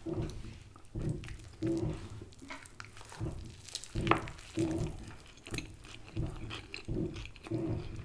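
A person chewing food with steady, rhythmic chews, about two a second, with small clicks between them.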